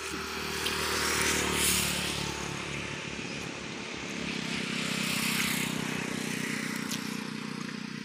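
Two motor vehicles passing on the road, each with engine and tyre noise swelling and fading. The first is loudest about a second and a half in, the second around five seconds in.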